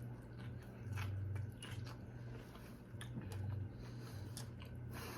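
Close-miked chewing while eating: faint, scattered mouth clicks and smacks.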